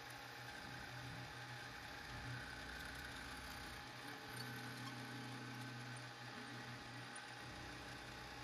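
Milling machine running steadily, its 1/4-inch carbide end mill cutting the seat for the iron in a cast brass plane body: a constant low hum with a faint steady whine.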